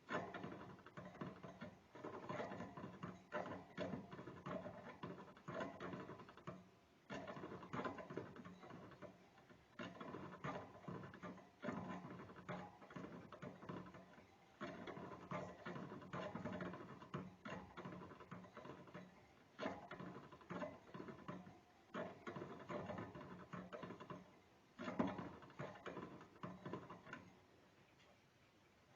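A small rodent gnawing, its teeth making rapid scraping clicks in runs of a few seconds broken by short pauses, fading near the end.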